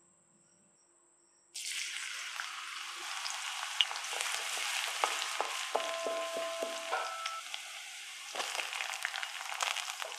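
Chopped garlic sizzling in hot oil in a metal kadai, starting suddenly about a second and a half in and running on steadily, with a spatula scraping and clinking against the pan as it is stirred.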